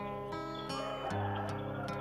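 Background score music: a plucked string instrument playing a steady line of notes, a new note roughly every half second or less.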